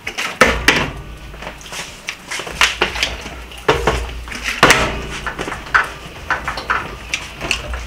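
Plastic bottle being flipped and landing on a glass tabletop: a string of sharp, irregular knocks and thuds.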